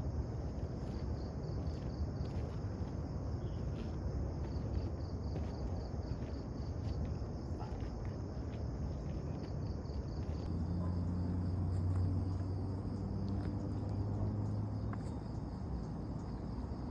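Crickets chirring in a steady, fast-pulsing high chorus over faint outdoor background noise. A low, steady hum joins in about ten seconds in.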